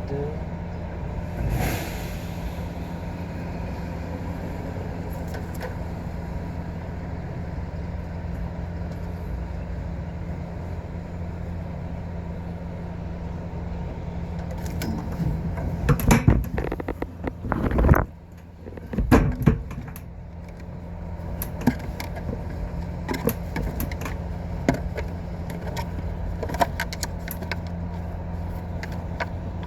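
Steady low machinery hum, with a run of sharp clicks and knocks from hand work with tools about halfway through.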